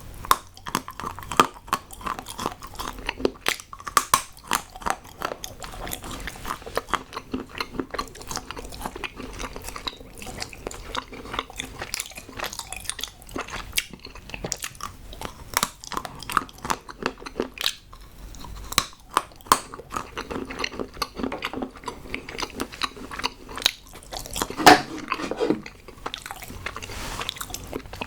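Close-miked chewing and biting of hard chocolate: a dense run of crisp snaps and crunches, with the loudest snap near the end.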